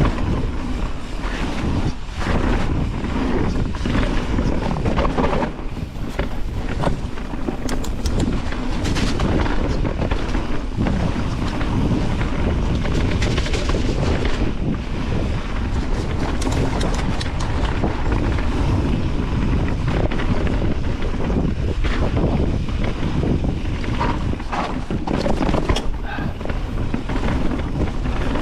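Mountain bike ridden fast down a rough trail: knobby tyres rumbling over dirt, with frequent clatter and knocks from the bike over roots and rocks, and wind buffeting the action-camera microphone.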